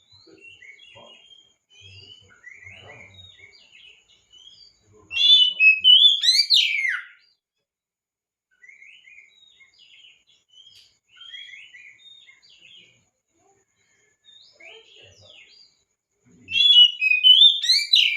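Oriental magpie-robin (kacer) singing: quiet, varied twittering phrases, broken by two loud runs of fast, sweeping whistled notes, one about five seconds in and one near the end.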